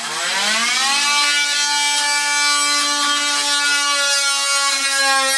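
A small electric motor, like a power tool's, spins up over about a second with its whine rising in pitch, then runs at a steady speed.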